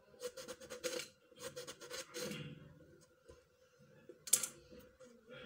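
Kitchen knife slicing eggplant into rounds in the hand: a quick series of crisp cutting strokes over the first two seconds or so, then a single sharp clink about four seconds in. A faint steady hum runs underneath.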